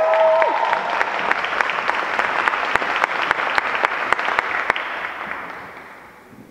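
Audience applauding after an introduction, with cheering whoops in the first half second; the clapping dies away over the last couple of seconds.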